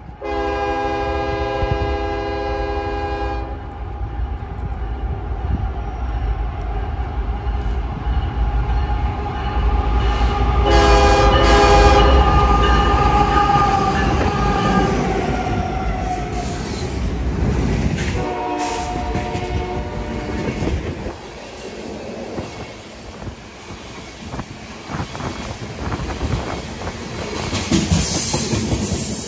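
BNSF diesel freight locomotive sounding its multi-chime air horn: a long blast at once, a second longer one about ten seconds in whose pitch sags as the engine passes, and a short third blast a few seconds later, over the deep rumble of the locomotive. After it, a train of tank cars rolls by with clattering wheels over the rail joints and some wheel squeal.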